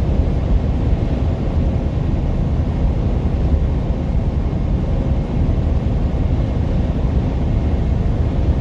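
Steady low rumble of road, tyre and drivetrain noise inside a semi-truck's cab at about 76 mph, with the truck coasting downhill on gravity.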